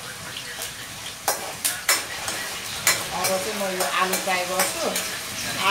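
Spatula stirring and scraping food in a hot wok, with a steady sizzle of frying and a few sharp knocks of the spatula against the pan between about one and three seconds in. A pitched, voice-like sound runs faintly in the background in the second half.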